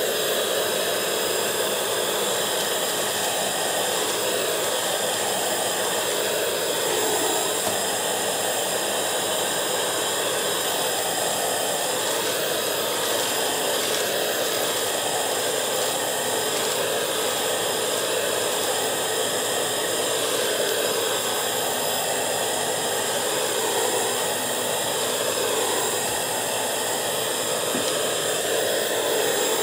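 Bissell 3-in-1 stick vacuum running steadily with a high motor whine, its floor nozzle pushed back and forth over a shag rug to suck up Cheerios.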